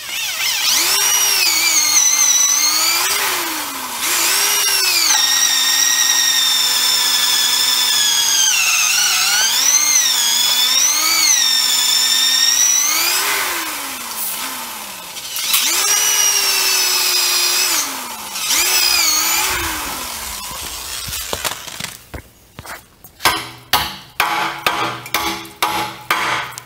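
Electric drill boring holes into an old rusted rear axle beam bushing, its motor whine rising and falling in pitch as the trigger and load change. Near the end come a run of quick metal blows from a 4-pound sledgehammer, beating the bushing out.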